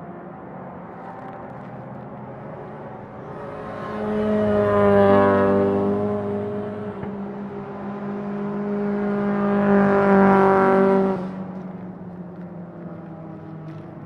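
Race car engines at high revs. One swells to a peak about five seconds in and falls away with dropping pitch as it passes. A second loud run builds to about ten seconds in and cuts off abruptly, over a steady drone of engines further off.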